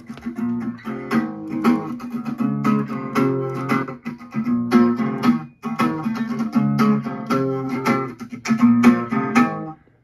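Guitar music: plucked and strummed notes in a steady rhythm, cutting off near the end.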